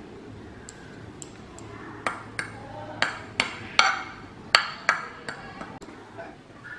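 Metal fork clinking and tapping against a dinner plate while spreading cauliflower rice: a quick run of about ten sharp clinks that starts about two seconds in, preceded by a few faint ticks.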